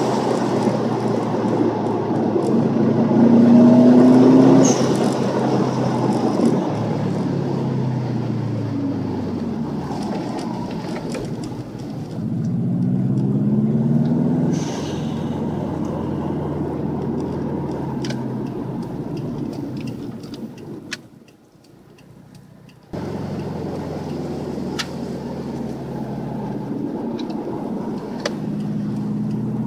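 2007 Subaru Impreza WRX STI's 2.5-litre turbocharged boxer engine pulling through a stainless steel catback exhaust, heard from inside the car with the window slightly down: the revs rise under acceleration and drop on lift-off. Twice, about five seconds in and again near fifteen seconds, the HKS SSQV blow-off valve vents with a short hissing whoosh as the throttle closes.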